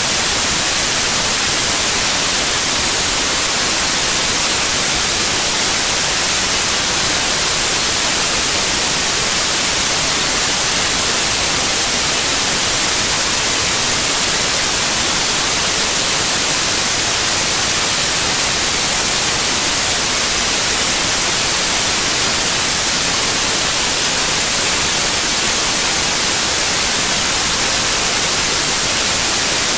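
Steady, loud static hiss with no other sound: electronic white noise on the audio track rather than anything in the scene.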